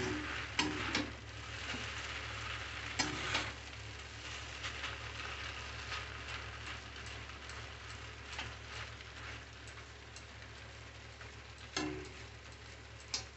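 Maggi noodles sizzling in hot oil in a steel kadai while a metal spatula stirs them. Sharp clanks of the spatula against the pan come in pairs, once about three seconds in and again near the end.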